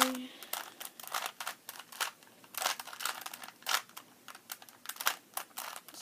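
A plastic 3×3 Rubik's Cube being twisted by hand: quick, irregular clicks and clacks as its layers turn.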